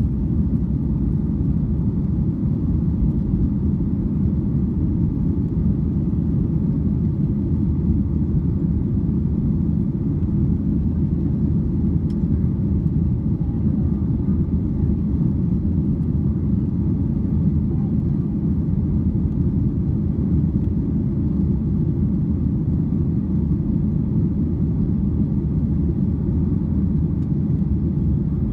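Steady low cabin rumble of a Boeing 737-800 under power, from its CFM International CFM56-7 engines and the airflow over the fuselage.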